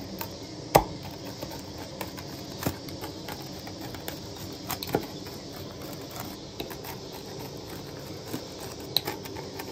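A pizza wheel cutter rolling through flatbread crust on a wooden board, with scattered clicks and knocks as the blade meets the board, the loudest about a second in, over a faint steady hiss.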